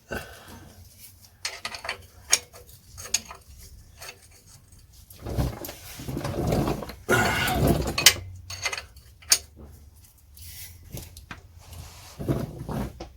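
Metal clinks and clatter as the gearbox drain plug is refitted and tightened with a spanner, with a louder stretch of knocking and rustling about halfway through.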